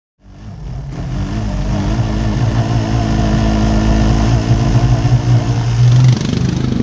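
Small go-kart engine running steadily while the kart drives, fading in at the start and growing louder over the first few seconds. The sound changes about six seconds in.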